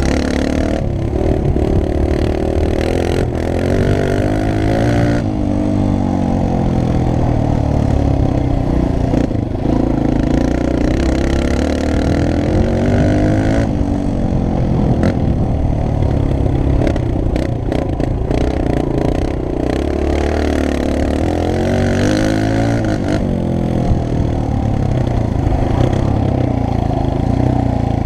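Suzuki DR-Z125 pit bike's single-cylinder four-stroke engine being ridden, revving up and dropping back again and again as the rider accelerates and shifts.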